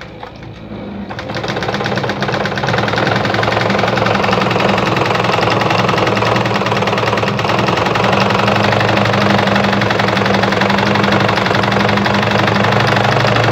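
Juki DIA Rotary 7 sewing machine running, sewing a decorative disc-cam stitch: the motor picks up speed over the first couple of seconds, then runs steadily with a low hum and rapid, even needle stitching.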